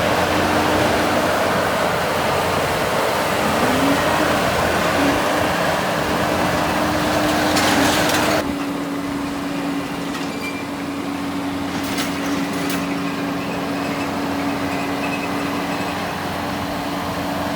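Diesel engine of a John Deere 325G skid steer running steadily. A loud rushing noise over it cuts off suddenly about eight seconds in, leaving the steady engine hum and a few light knocks.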